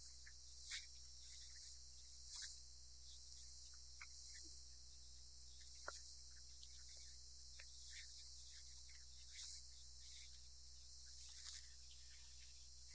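Quiet room tone: a steady low hum and an even high hiss, with a few faint short ticks scattered through.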